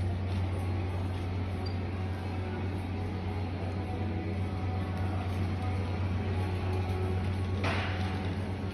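Steady low hum and rumble of a wire shopping cart being pushed across a store floor, over the building's ventilation drone, with a short rattle near the end.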